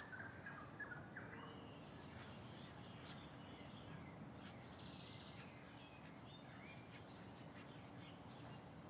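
Near silence: faint background noise with faint, scattered short chirps, clustered in the first second and a half.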